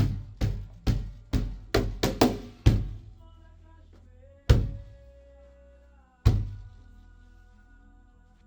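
Cajón played by hand: a steady groove of strokes about two a second that stops about three seconds in, followed by two single hits with faint sustained tones ringing beneath them.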